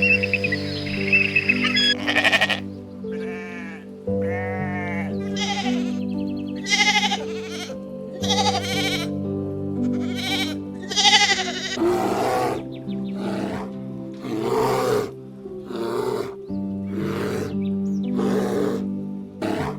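Soft background music with sustained chords, over a long run of animal calls, roughly one a second, starting about two seconds in. The first calls arch up and down in pitch; the later ones are harsher.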